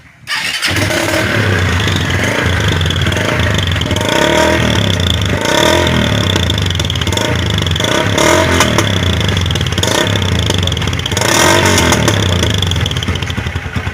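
Motorcycle engine starting a moment in and then running loud through a G-Moto "estralador" (popping-style) exhaust fitted with one silencer baffle, blipped up several times with a rough, crackling exhaust note.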